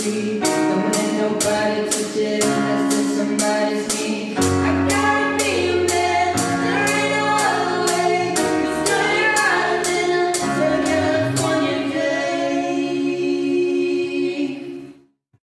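Teenage band singing in several-part harmony with keyboard accompaniment and a steady ticking beat. It ends on a held chord that fades out and stops shortly before the end.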